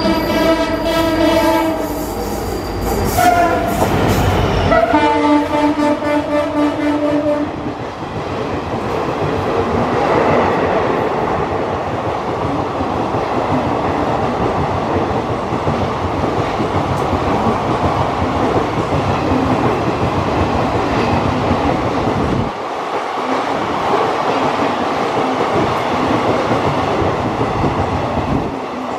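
WDP-4B diesel locomotive's horn sounding three times as it approaches, the first and last blasts held for about two seconds each. From about eight seconds in, the steady rumble and rattle of its passenger coaches running past.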